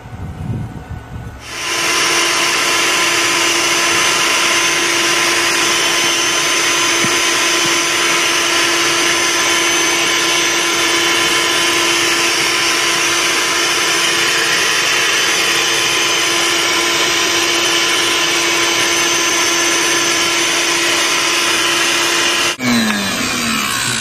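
Bee vacuum motor running steadily with a constant hum and a rush of air, sucking honeybees off the comb through its hose. It switches on about a second and a half in and cuts off shortly before the end, winding down briefly.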